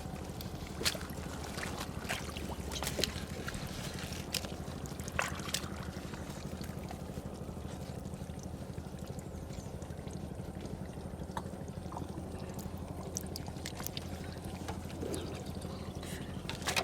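A steady low motor hum runs under water pouring and splashing, with scattered sharp clicks and knocks.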